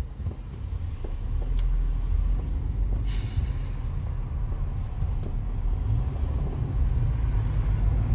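Steady low rumble of a car driving slowly in stop-and-go traffic, heard from inside the cabin. A brief hiss comes about three seconds in.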